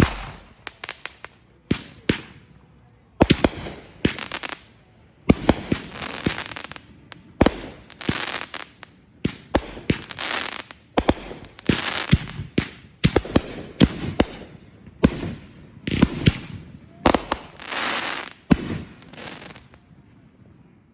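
Fireworks going off in quick succession: sharp bangs, many of them followed by about a second of dense crackling. The run ends shortly before the last second.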